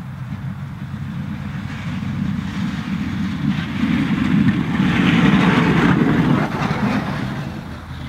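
Pickup truck plowing snow: the 5.3 Vortec V8 of a 2006 Silverado 1500 running under load while the steel straight-blade plow scrapes along the pavement. The scraping noise builds to a peak about five to six seconds in, then eases off.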